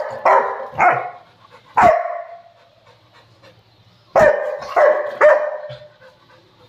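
Rottweiler barking aggressively at close range, lunging at the camera: a quick run of barks, a pause of about two seconds, then three more barks in quick succession.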